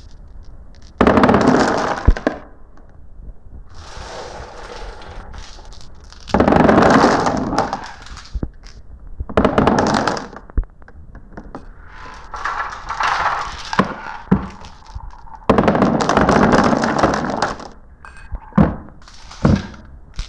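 Glass marbles rolling and clattering down a marble run, in repeated rattling bursts of a second or two each, with sharp single clicks in between as marbles knock against the track and each other.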